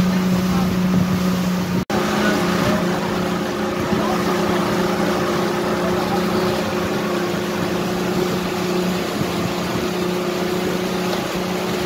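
Motorboat engine running steadily with an even hum, water rushing along the hull. The sound breaks off for an instant about two seconds in.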